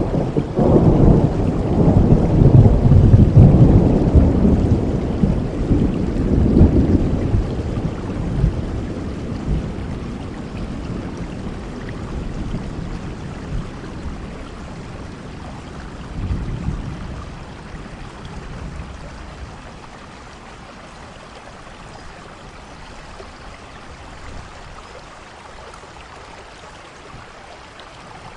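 A long roll of thunder over steady rain. The rumble swells in the first few seconds, then dies away slowly with a smaller swell midway, leaving the even hiss of rain.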